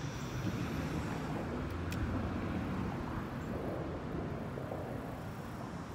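Steady low background rumble of open-air noise, with one faint click about two seconds in.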